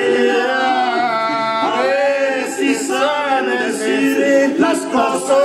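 An elderly man singing a Mexican song along with musical accompaniment, holding long notes.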